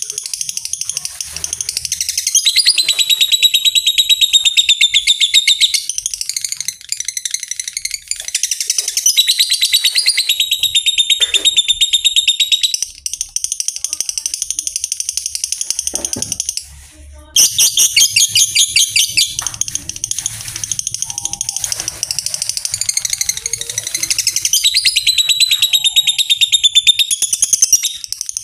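Lovebird giving its long, rapid chattering trill ("ngekek panjang"), high-pitched, in runs of several seconds broken by a few short pauses. This is the fighter lovebird's ngekek song, used as a lure to get other lovebirds singing.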